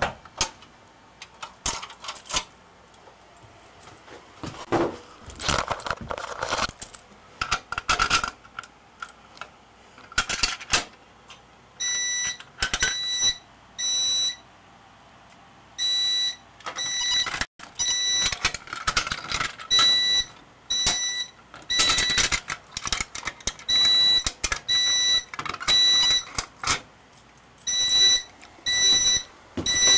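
Keys jangling and handling clicks, then about twelve seconds in a fire alarm speaker comes on with a single-pitched electronic tone pulsing on and off roughly once a second, the pull station test of an EST Fireshield fire alarm panel.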